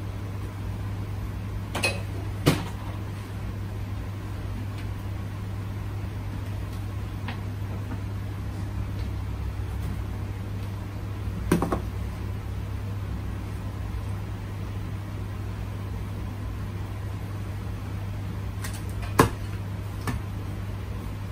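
A steady low machine hum, with a few brief sharp knocks scattered through it; the loudest come about two and a half seconds in and near the end.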